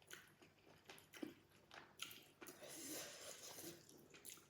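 Faint close-miked chewing: soft mouth clicks and smacks while eating.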